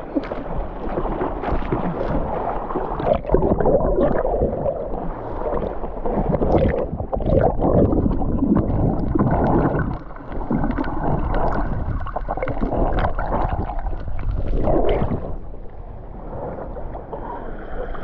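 Sea water splashing, sloshing and gurgling over a waterproof action camera carried by a swimmer doing front crawl at the surface. The camera keeps dipping in and out of the water, giving an uneven rushing with many small knocks.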